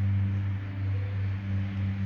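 Steady low electrical hum with a fainter overtone an octave higher.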